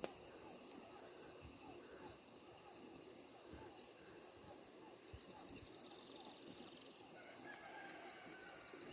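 Faint outdoor ambience of insects buzzing steadily at a high pitch, with a brief pulsing trill in the middle and a few soft low thumps.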